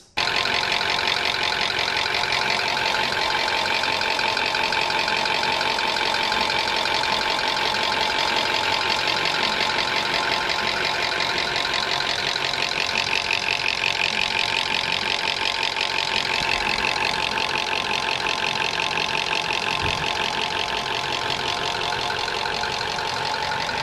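High-mileage Toyota VVT-i engine running at a steady idle with a fast, constant ticking clatter from the top end. The mechanic puts the noise down to heavy sludge and deposit build-up under the rocker cover after stretched service intervals.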